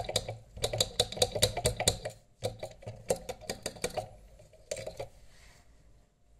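Quick runs of clicking, scraping strokes, about seven a second, as old adhesive is worked off a smartphone screen with thinner. There are three runs, the last one short, and the strokes stop about five seconds in.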